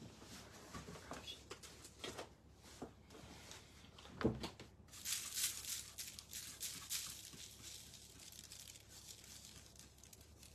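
Faint scratchy scrubbing of a paintbrush's bristles on a painted round board, with scattered light taps of tools on the work table and one louder knock about four seconds in.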